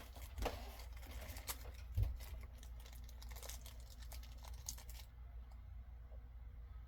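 Collectible pins being handled: light clicks, ticks and crinkling, with a heavier knock about two seconds in, then quieter after about five seconds.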